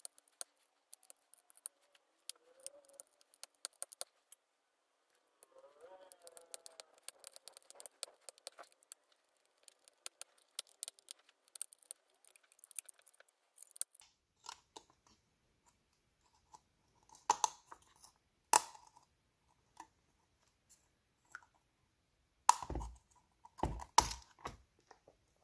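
Metal tweezers clicking and scraping against a thin metal EM shield as it is pried off a tablet's motherboard: many small scattered ticks and scrapes, then a few louder clicks and knocks near the end as the stubborn shield comes loose.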